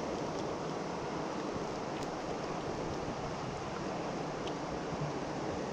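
Steady rush of creek water running over rocks.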